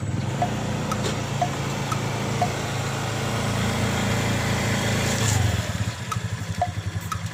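Small motorbike engine, a step-through scooter type, running steadily as the bike creeps forward, with a brief rev about five seconds in, then settling to an uneven, pulsing idle.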